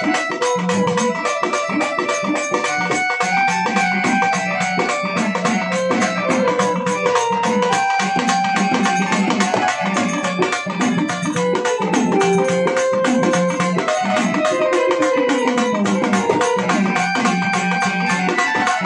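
Instrumental interlude of Marathi folk music: a reedy, organ-like keyboard melody of held notes over fast, steady hand-drumming on a dimdi frame drum.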